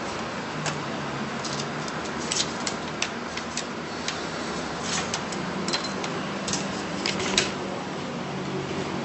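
Irregular sharp clicks, about two a second, over a steady background hiss, the strongest click near the end.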